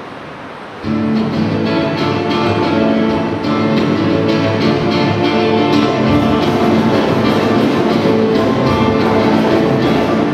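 Electronic keyboard playing an instrumental introduction to a Christmas carol medley, with an orchestral sound of held chords and a steady beat, starting about a second in after faint room noise.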